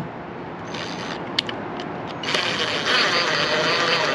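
Ryobi 18V cordless driver driving a screw through a mounting bracket into wood: a brief spin about a second in, then a longer, louder run from about halfway that stops just before the end.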